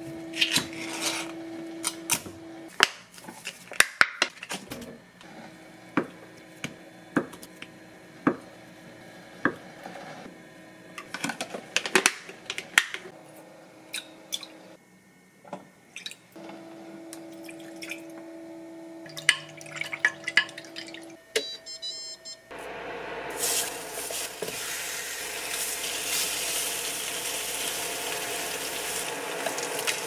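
Glass jugs and a spoon clink while liquid is poured and stirred to mix a soy sauce seasoning, with a steady hum in the background. About three-quarters of the way in, Spam slices start sizzling steadily in a hot frying pan, with chopsticks tapping the pan now and then.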